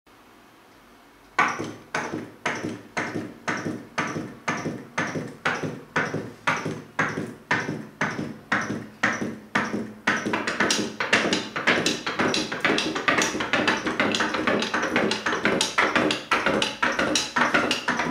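Rhythmic sharp taps, each with a short ringing tone, about two a second, quickening to about three or four a second about ten seconds in.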